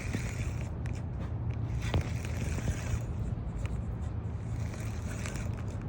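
Fishing reel being cranked to retrieve line after a cast, a steady scratchy whirring, with a low steady rumble underneath and one small click about two seconds in.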